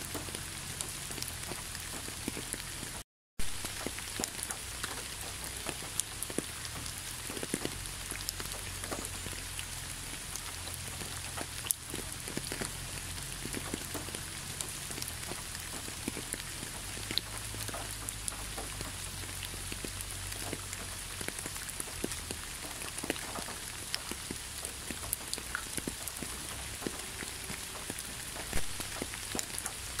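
Steady rain falling, a constant hiss dotted with many separate drop ticks. About three seconds in the sound cuts out completely for a fraction of a second, then comes back with a sharp tick.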